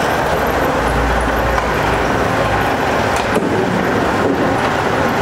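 Steady running noise of the jaggery unit's machinery, with a couple of sharp knocks about three seconds in.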